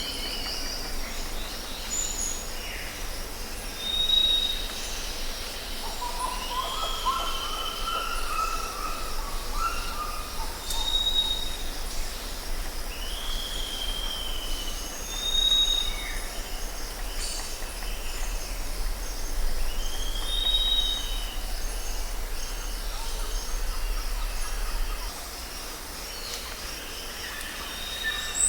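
Wild birds calling: short high whistles and downward-slurred notes that repeat every few seconds, with a lower run of rising notes in the middle. A steady low rumble runs underneath and eases off near the end.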